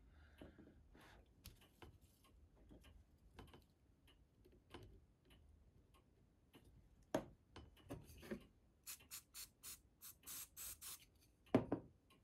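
Quiet hand-work on a plastic model: light taps and clicks as parts are pressed and handled, a sharper knock about seven seconds in, then a quick run of about seven short scratchy strokes and another knock near the end.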